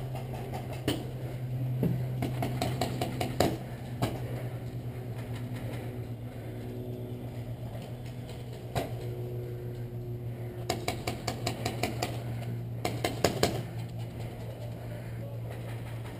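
Mag-fed paintball markers firing rapid strings of shots: one string about three seconds in and two more later, over a steady low hum.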